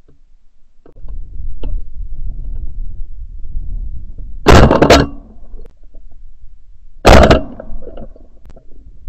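Two very loud shotgun blasts about two and a half seconds apart, recorded by a camera mounted on the gun's barrel, over low rumbling wind and handling noise.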